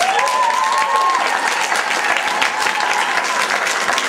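Audience applauding at the end of a dance number, a dense clatter of clapping hands. A single voice calls out over it in the first second or so.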